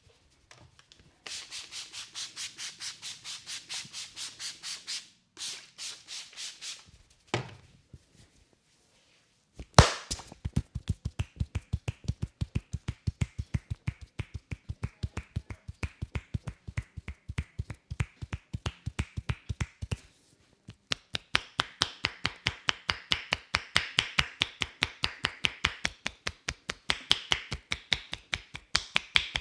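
Hands massaging a person's neck. First come a few seconds of quick, even rubbing strokes on skin. From about ten seconds in there is a long run of rapid rhythmic hand strikes, roughly four a second, which pauses briefly and then carries on faster.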